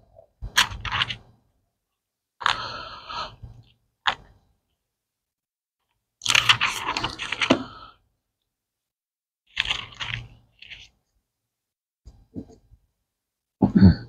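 Bible pages being turned and rustled on a podium, picked up by its microphone: about six separate rustling scrapes with short silences between them.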